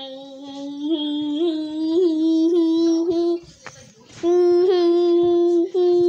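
A child's voice humming long held notes, with small wavers in pitch, breaking off briefly just past the middle.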